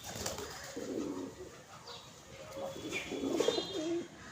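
Doves cooing in low, repeated calls around a second in and again near the end, with a few higher bird chirps among them.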